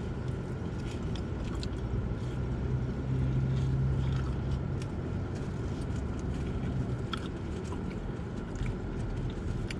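Car engine running with a steady low hum, a little louder for a second or two about three seconds in, with a few faint clicks.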